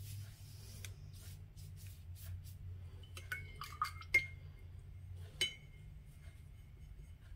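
A paintbrush clinking a few times against a glass water jar, with short ringing clinks in the middle, the loudest about four seconds in. A steady low hum runs underneath.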